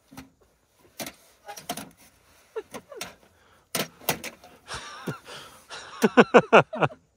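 Scattered clicks and knocks of gear being handled, then a quick run of about six short squeaky sounds about six seconds in.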